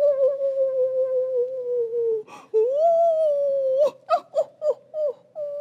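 A voice making a ghostly 'oooo' moan for a ghost puppet. It is held for about two seconds, slowly falling in pitch, then comes again after a short break with a rise and a slow fall. Near the end it turns into several short falling cries.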